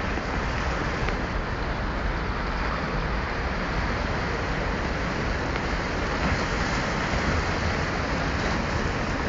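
Steady rush of the flooded Tiber's churning, wave-tossed water, with wind buffeting the microphone.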